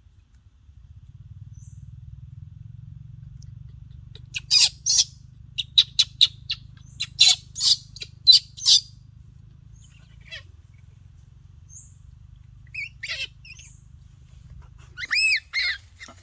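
Baby monkey squealing while a hand holds it down: a quick run of short, shrill squeals between about four and nine seconds in, a few scattered ones after, and two arching rise-and-fall cries near the end.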